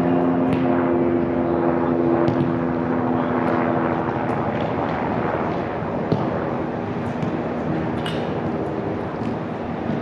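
Steady engine drone over a constant rush of city background noise. Its low hum is strongest at first and fades about four seconds in, and a single sharp knock sounds about six seconds in.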